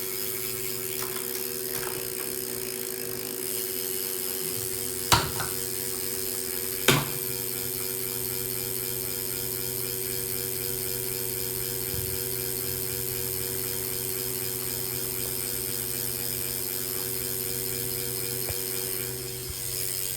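Tacx Neo direct-drive smart trainer running: a steady hum with several fixed tones over a high hiss. Two sharp clicks come about five and seven seconds in.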